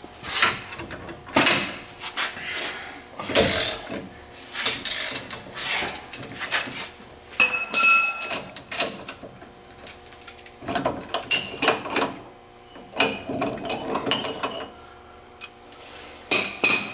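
Steel hand tools and ball joint press parts clanking, scraping and rattling in irregular knocks, with one ringing metallic clink about eight seconds in.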